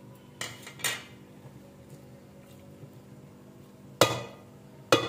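Metal spoon knocking and scraping against a metal cooking pot while stirring aloo gobhi: two light clanks near the start, then two louder clanks near the end, each ringing briefly.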